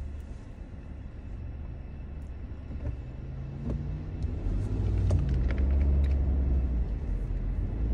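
Car's engine and road rumble heard from inside the cabin while driving, growing louder from about halfway through.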